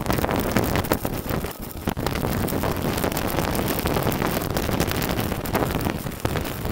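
Stick-welding arc from a Tenya CUT50 inverter in stick mode set to 120 amps, crackling steadily as the electrode burns along the steel plate, with a brief dip about one and a half seconds in.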